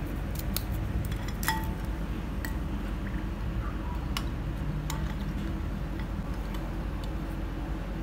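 A metal spoon clinking against a glass bowl of coffee about six times in the first five seconds, one clink ringing briefly, over a steady low hum.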